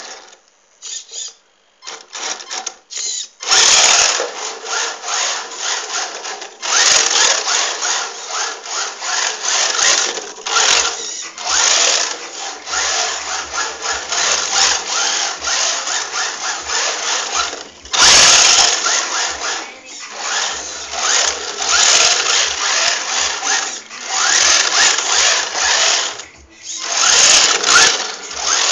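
Electric RC drift car's motor whining as it revs up and down in surges, with its tyres scrubbing and sliding across a tiled floor. It picks up in earnest a few seconds in and drops off briefly twice.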